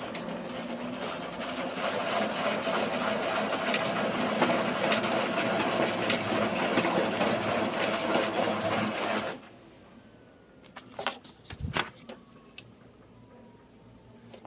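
HP LaserJet P4015n laser printer running for about nine seconds, as when feeding and printing a page, then stopping suddenly. A few clicks and knocks follow about two seconds later.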